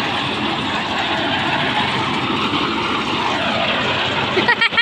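Drum concrete mixer running with a steady mechanical drone. A quick run of short high chirps comes in near the end.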